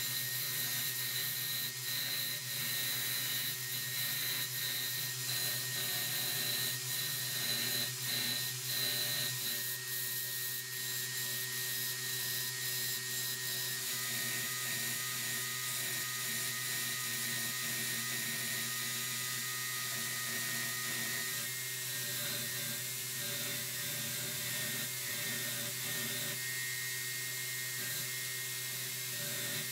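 Belt grinder running while a steel hammer head is pressed against its abrasive belt and ground. A steady motor hum sits under the grinding, which changes slightly around ten and fourteen seconds in as the work is moved on the belt.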